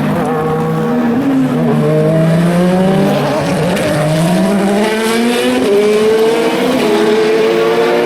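Racing car engines accelerating hard, more than one car at once, their pitch climbing through the gears with a shift and fresh climb about halfway through.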